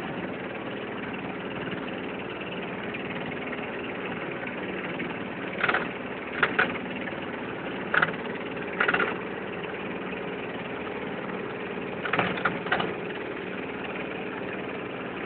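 Small motorboat's outboard engine running steadily, with a few short, louder sounds breaking in about six, eight, nine and twelve seconds in.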